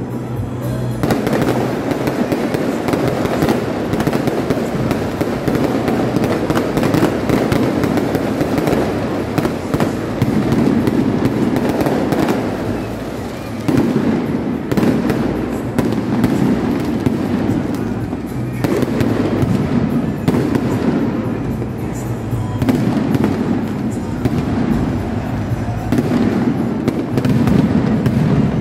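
Aerial firework shells bursting and crackling in a dense, continuous barrage, with music playing underneath.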